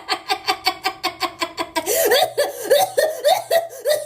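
A person laughing in quick, even bursts, about seven a second at first, then slower, fuller bursts of about four a second from roughly halfway through.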